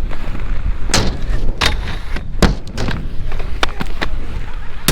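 Inline skate wheels rolling on skatepark concrete, a steady rumble broken by sharp clacks and thuds at irregular intervals, roughly one a second.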